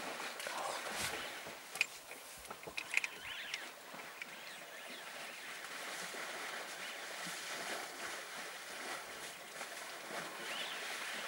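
African elephants wallowing and drinking in a muddy waterhole: mud and water sloshing and splashing, with a few sharp splashes about two and three seconds in.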